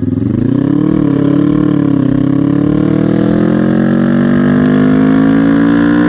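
Kawasaki ER-6N's 649 cc parallel-twin engine through an SC Project exhaust, pulling hard at full throttle in second gear. The pitch wavers briefly, then climbs steadily as the revs build.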